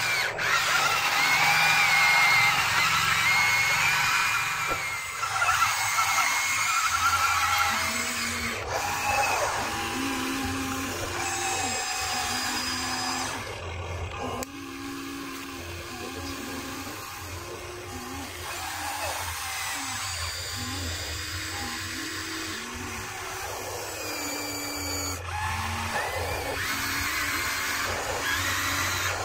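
Electric motors and gears of two Huina remote-control excavators whining, rising and falling in pitch as their booms and buckets move, over background music.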